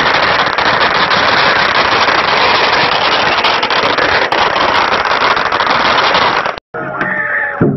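A long string of firecrackers going off in a dense, continuous rapid crackle of sharp pops. It cuts off suddenly about six and a half seconds in, followed by the ringing gong and cymbals of a lion dance.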